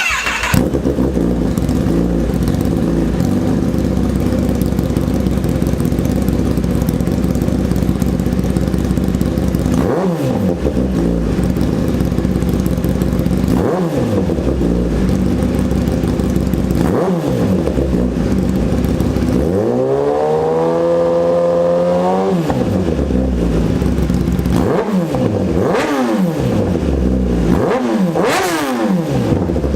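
Kawasaki ZX-10R inline-four sport bike with an aftermarket exhaust idling, with short throttle blips that rise and fall quickly. About two-thirds of the way through it revs up and holds high for about three seconds, then drops back, and near the end comes a quick run of four blips.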